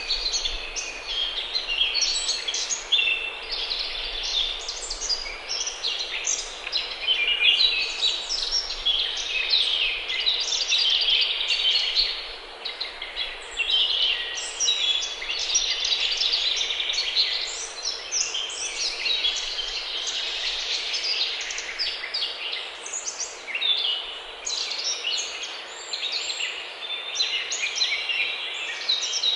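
Many songbirds singing at once: a dense, overlapping chorus of high chirps and trills with no pause.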